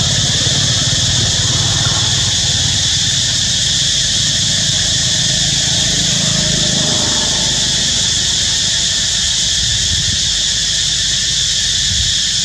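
Steady high-pitched buzz of insects in the trees, with a low engine rumble under it that fades out about halfway through.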